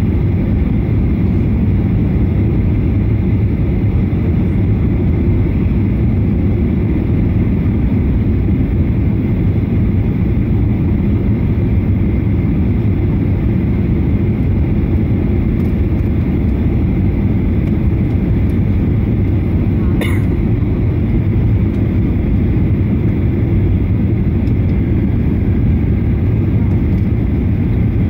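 Steady cabin roar of a Boeing 737-800 on approach with its flaps extended: the CFM56 engines and the rush of air over the airframe make an even, low noise. A brief click sounds about two-thirds of the way through.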